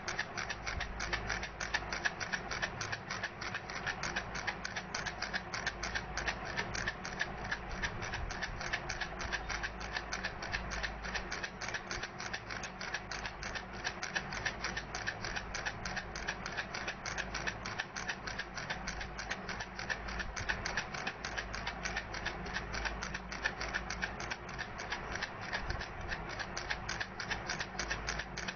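Baby rattle shaken steadily, its beads making fast, continuous clicking.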